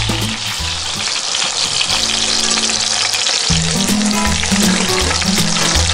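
Prime rib sizzling loudly as it sears in hot oil in a cast iron Dutch oven, with background music underneath.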